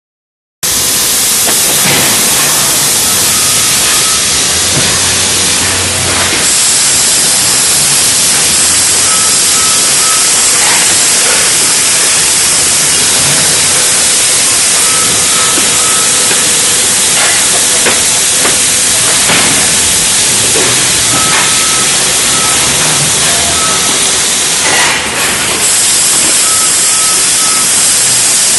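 Steady loud hiss of a factory packaging conveyor line running, with a short run of high beeps about every six seconds and scattered faint clicks.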